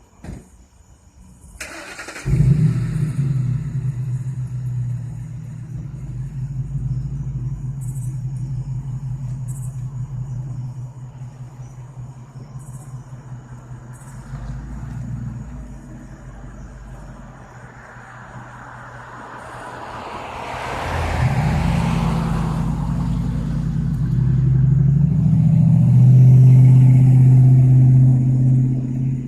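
Thunder: a sharp crack about two seconds in, then a long low rumble that slowly fades, and a second peal that builds gradually to a loud rolling rumble near the end.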